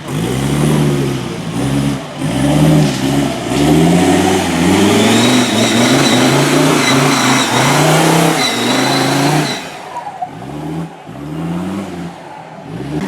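Rally car engine being revved hard again and again, its pitch rising and falling every second or so. It holds loud and high for several seconds with a thin high whine, then eases off about nine and a half seconds in, followed by a few more short revs.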